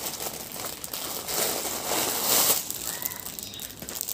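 Plastic packaging rustling and crinkling as a courier mailer bag is opened and a garment in a clear plastic wrapper is pulled out, loudest about two seconds in.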